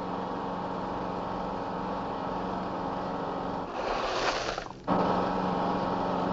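Unimog diesel engine running steadily. About four seconds in, a loud rush of tumbling stone rubble lasts about a second, then the engine comes back abruptly.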